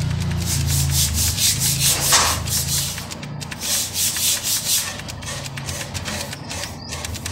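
A scratchy rubbing noise made of many quick, irregular scrapes, over a low hum that is strongest in the first few seconds.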